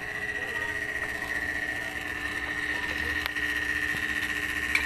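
Samsung dual-inverter refrigerator compressor running steadily after being recharged with R600a, with a steady high whine over a lower hum. A couple of brief clicks come through, one near the end.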